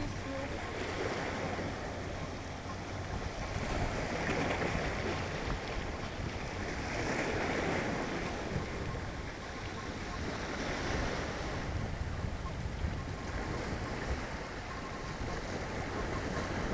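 Wind on the microphone over small lake waves washing against a rocky shore. The noise swells and eases every few seconds.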